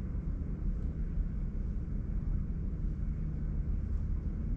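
Steady low background rumble, even throughout, with nothing else standing out.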